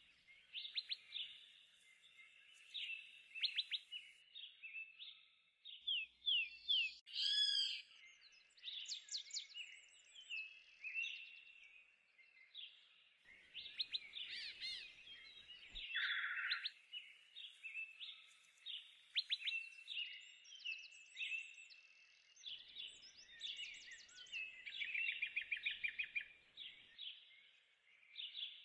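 Several small birds chirping and trilling: many short, high calls that overlap continuously, with a brief louder, lower call about sixteen seconds in.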